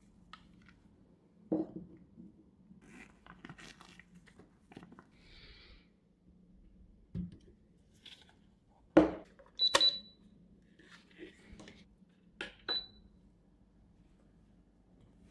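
Scattered knocks and taps of a plastic ultrasonic aromatherapy diffuser being handled, with faint rustling between. Twice, a click is followed at once by a short high beep, the device's button beep as it is switched or set.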